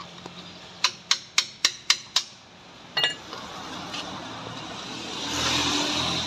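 A quick series of six sharp metallic taps, about four a second, then a single ringing clink: a steel hand tool working at the metal brake cover of a road roller's drum. A louder, even rushing noise builds near the end.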